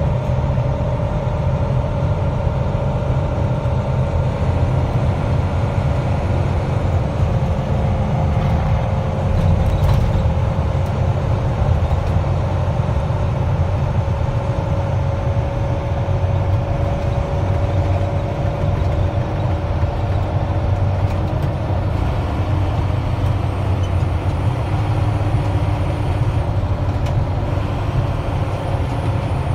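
Mack dump truck's diesel engine and road noise heard from inside the cab at steady highway speed: a continuous low rumble with a faint, nearly level whine above it.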